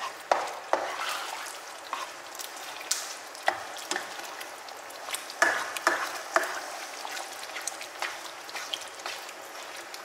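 A spatula stirring thick tomato sauce in a non-stick frying pan: a steady sizzle of the simmering sauce with irregular scrapes and light taps of the spatula against the pan.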